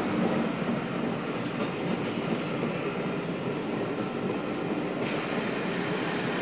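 A train moving along the track, with a steady noise of wheels on the rails.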